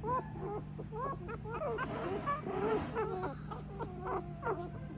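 Newborn mini goldendoodle puppies whimpering and squeaking in a steady string of short, high, wavering cries, over a steady low hum.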